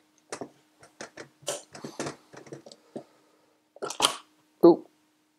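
Small irregular clicks and scrapes of a precision screwdriver turning screws in the red plastic case of a Uni-T UT233 clamp meter, then about four seconds in a few sharper knocks as the screwdriver is laid on the bench and the plastic case is handled.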